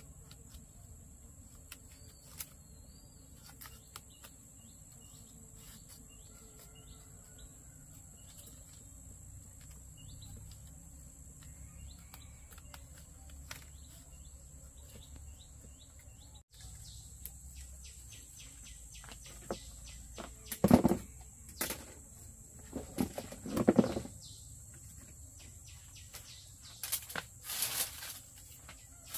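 Insects chirring steadily in a high, even drone, with scattered small clicks. About two-thirds of the way through, a few louder short noises stand out, twice within three seconds, and once more near the end.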